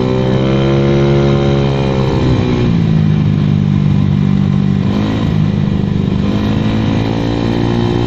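Honda Vario 110 carburetted scooter's single-cylinder four-stroke engine running on the move through an AHM standard racing exhaust, with the exhaust louder than the engine. The engine note drops about two seconds in, holds lower, and picks up again near the end as the throttle changes.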